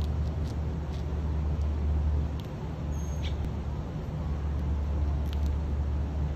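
Steady low rumble of city traffic, with a few faint, short high clicks and chirps scattered over it.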